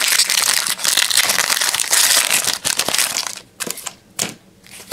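Trading-card pack wrapper crinkling as it is torn open and pulled off, then a couple of short clicks near the end as the stack of cards is handled.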